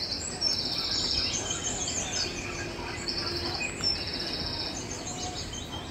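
Small birds chirping: high, trilled chirps about half a second long, repeating every second or so over a steady low background noise.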